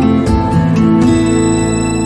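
Intro music on acoustic guitar: a few plucked notes and strums, ending about a second in on a chord that rings out and fades.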